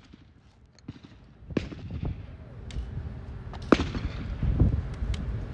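Shotgun shots: two sharp reports about two seconds apart, the second the louder, over a low rumble.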